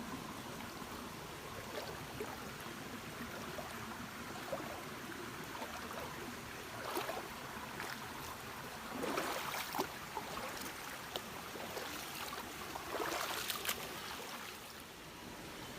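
River water flowing steadily over stones. Louder swishes of water come about halfway through and again near the end.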